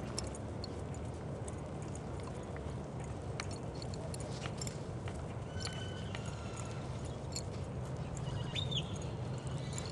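Pony's hoofbeats on soft arena dirt as it jogs, over a steady low rumble. A brief high chirp is heard near the end.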